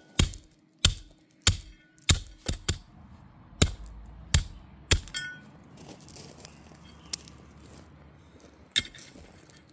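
A run of about nine sharp metallic strikes, one every half-second or so, some leaving a brief ring, which stop about five seconds in; two more single knocks follow later.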